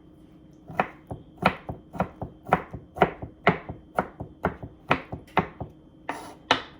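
Kitchen knife chopping rapidly on a cutting board, quick even strokes about four a second, starting about a second in.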